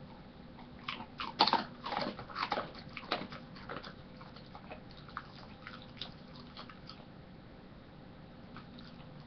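A Siberian husky chewing a treat: an irregular run of crisp clicks and crunches about a second in, thinning out and stopping after several seconds.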